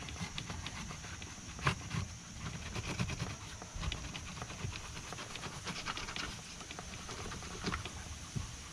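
Irregular plastic clicks, taps and rustling as a hand handles the cabin air filter cover on the blower housing behind the glove box of a 1995 Acura Legend, with one sharper knock a little under two seconds in.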